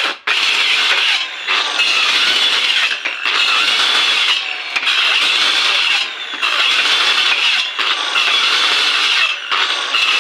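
A tool working wood in repeated rasping strokes, each about a second and a half long, with short breaks between them.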